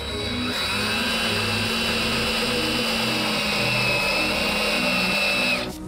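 DeWalt 18V XR cordless drill running steadily, driving a self-drilling screw through a plastic seal into the filter box. Its motor whine holds with a slight dip about four seconds in, then stops shortly before the end.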